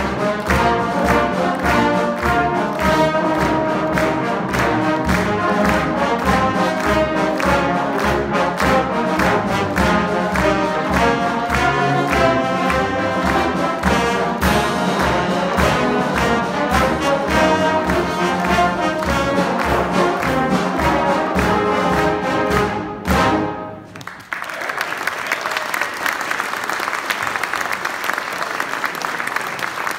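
Trombone choir playing a brisk piece with a steady beat, ending on a final chord about 23 seconds in. The audience then applauds.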